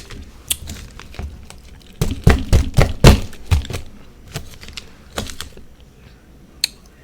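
Close-up crunching and biting of refrozen freezer frost mixed with whipped cream: a run of sharp crunches, thickest about two to three and a half seconds in, with scattered crunches around them.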